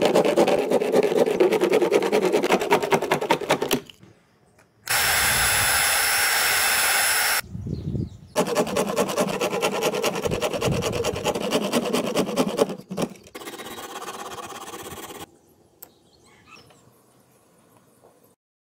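Coping saw cutting through PVC sheet in quick, close strokes, in two spells. Between them a power tool runs steadily with a thin high whine for about two and a half seconds.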